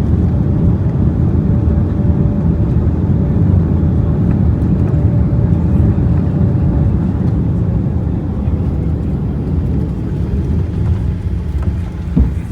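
Steady, loud low rumble of a moving vehicle, with a faint steady hum through the first half. It eases slightly near the end, with a short knock just before it finishes.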